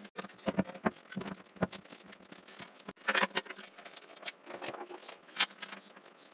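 Scattered metal clicks and knocks of winch mounting hardware being handled: bolts, washers and the winch itself shifting on a steel mounting plate while the bolts are fitted up from underneath. The knocks come irregularly, with a louder cluster about three seconds in.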